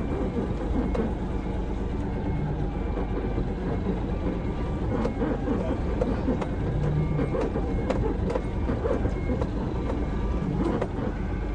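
Truck diesel engine running steadily at low speed, heard from inside the cab of a Hino Profia tractor unit while it maneuvers a semi-trailer, with a few light clicks and rattles.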